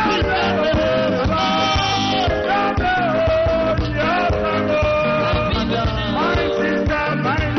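Music with a singer's melody over a steady beat.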